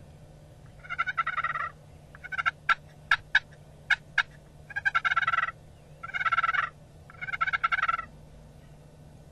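Eastern wild turkey gobbler gobbling four times, each gobble a quick rattling burst under a second long. Between the first and second gobbles comes a run of short, sharp notes.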